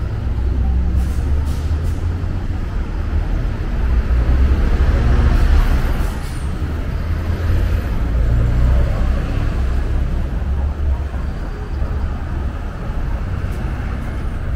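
Steady heavy rumble of passing vehicle traffic, swelling about four to six seconds in as a large vehicle goes by.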